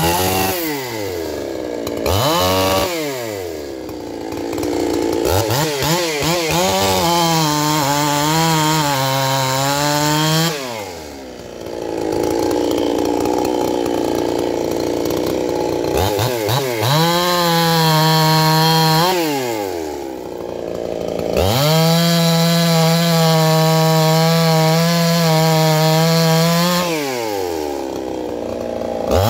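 Two-stroke Stihl-clone chainsaw revving to full throttle several times and dropping back to idle between, with a long idle in the middle. Its pitch wavers as the freshly sharpened chain cuts through a log, then holds high and steady in a longer burst near the end.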